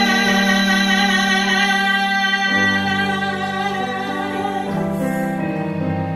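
Woman singing a gospel song, holding one long note over sustained chords on a Yamaha digital piano. The chords change about halfway through, and near the end the voice drops away, leaving the piano.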